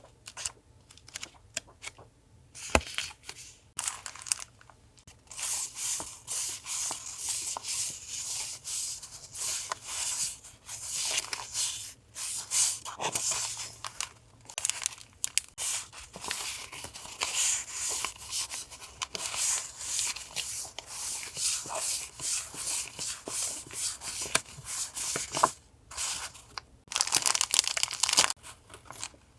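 Paper and plastic packaging crinkling and rustling as sticker and stationery items are unwrapped and handled. Scattered light taps come first, then long stretches of rustle with a louder burst near the end.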